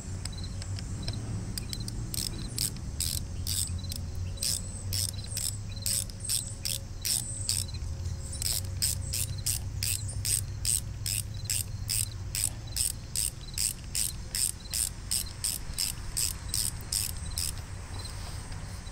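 Hand ratchet wrench clicking in quick, even strokes, about two to three a second, while turning bolts on a cast-iron gear housing. The clicking starts about two seconds in and stops shortly before the end.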